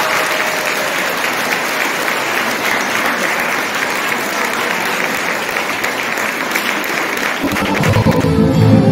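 Audience applauding with steady clapping. About seven and a half seconds in, music starts over the clapping.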